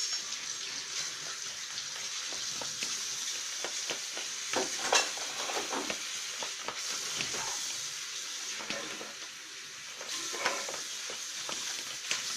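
A sticky glue-and-oil slime mixture being stirred in a bowl, a continuous wet, crackly squelching with many small clicks.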